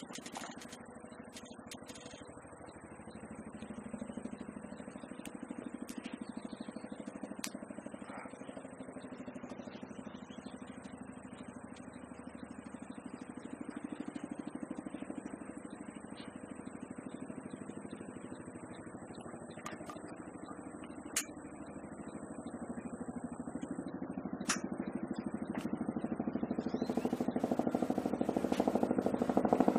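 Robinson helicopter's rotor chop, distant and steady at first, then growing steadily louder over the last several seconds as it comes closer.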